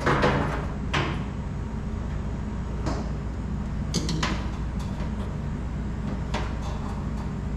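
Scattered knocks and clinks of hand tools and faucet parts against the sink as a commercial kitchen faucet is fitted and its nuts tightened, about six in all with the loudest right at the start. A steady low hum runs underneath.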